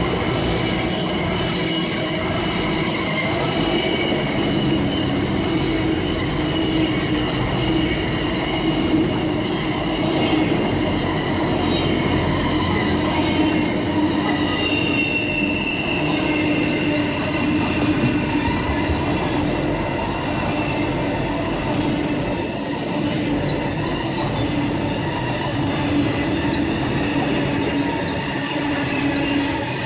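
Long freight train rolling past on the rails, its wagon wheels squealing steadily over a continuous rumble.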